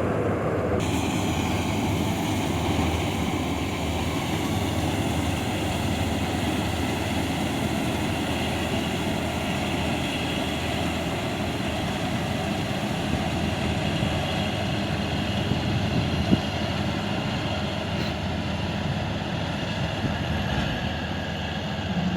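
Preet combine harvester running steadily at work, a continuous engine and machinery drone with a higher rushing noise joining about a second in. A single sharp knock stands out about sixteen seconds in.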